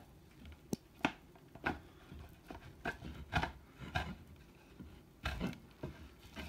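Irregular knocks, clicks and scraping of wooden boards and hinges as a homemade worktop extension is lifted up and propped with a brace underneath.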